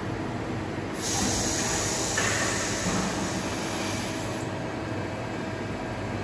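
Correa Norma MG milling machine with automatic pallet changer running: a steady machine hum, with a hiss that starts sharply about a second in and cuts off after about three seconds.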